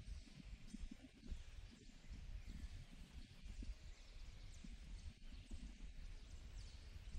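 Quiet open-air ambience: a low, uneven rumble with a few faint, short, high chirps from birds.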